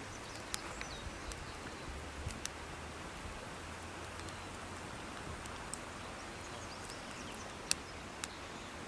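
Wood campfire burning with a steady hiss and scattered sharp crackles and pops, the loudest pop near the end.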